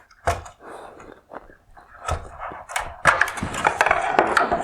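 Plastic wire harness connector being unplugged from the back of an LED headlight projector: a few sharp clicks, then about a second and a half of scraping and rattling plastic.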